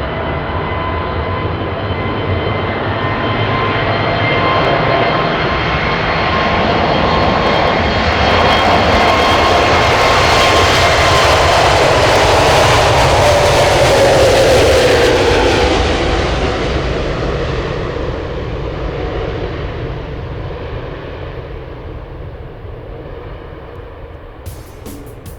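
Airbus A320neo's Pratt & Whitney PW1100G geared turbofan engines: a jet rumble with a whine on top swells as the airliner approaches, peaks about halfway through, then drops in pitch as it goes past and fades away.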